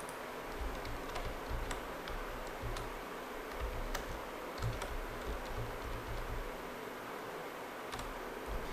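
Computer keyboard keys clicking in an irregular run, with dull low thuds under the clicks, as the same copied line of text is pasted over and over.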